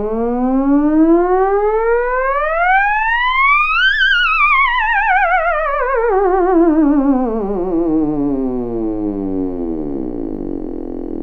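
Theremin sounding one continuous gliding tone, played by a hand moving near its pitch antenna. The pitch slides steadily up from low to high for about four seconds, then sweeps back down with a wavering vibrato and cuts off near the end.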